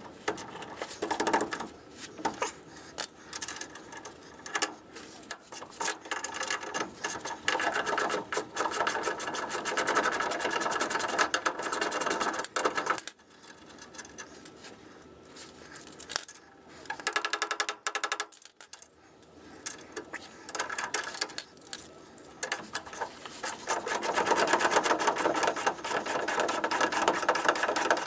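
Hand ratchet wrench clicking rapidly in long runs as it is worked on the leaf-spring U-bolt nuts at the front axle of a 1949 GMC truck, with a quieter pause about halfway through.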